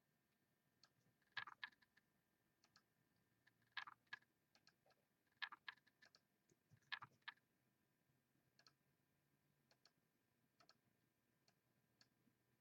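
Faint, scattered clicks of a computer mouse and keyboard, in a few quick clusters with single ticks between them, in a quiet room: the list is being copied and pasted.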